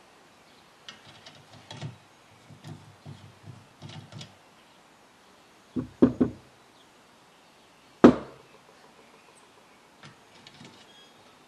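A screwdriver and small metal parts handled against the Hallicrafters SX-99's metal dial face plate: a scatter of light clicks and taps, two sharp knocks about six seconds in, and a single louder knock about eight seconds in.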